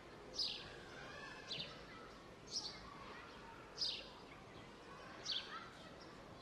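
A bird calling again and again, a short high chirp that falls in pitch, about once a second, over faint steady background noise.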